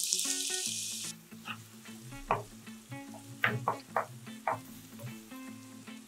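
Finely chopped onions dropped into hot oil in a nonstick kadai, with a sudden loud sizzle that dies down about a second in. Then a wooden spatula stirs and scrapes them around the pan in several strokes while they keep frying.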